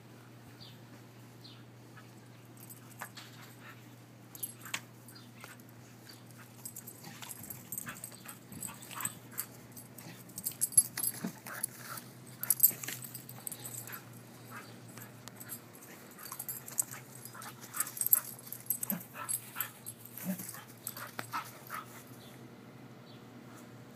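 A terrier making its play noises while running with its toys: a long run of short, quick sounds that starts a few seconds in, is busiest through the middle, and dies away near the end.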